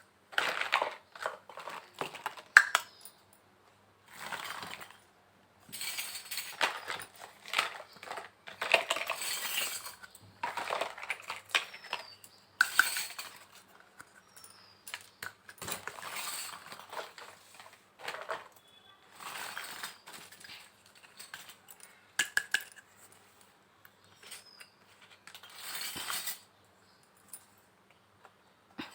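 Pieces of a miniature toy kitchen set clinking and clattering as they are handled, in short bursts of taps and rattles with quiet gaps between.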